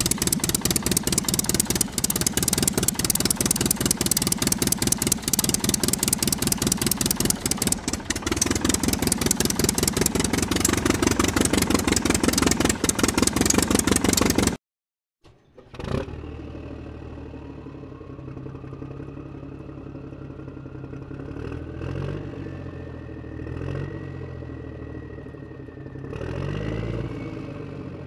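Toy car being pushed and played with, making a loud, rapid rattling, engine-like noise that cuts off suddenly after about fifteen seconds. Then a quieter, steadier hum follows, with a tone that slowly rises in pitch.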